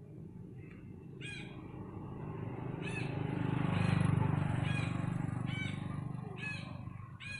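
A bird calls over and over, short sharp calls about once a second, over a low rumble that swells and fades, loudest about four seconds in.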